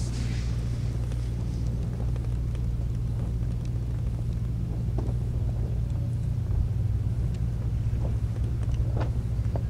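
Steady low drone of a running motor vehicle engine, even throughout.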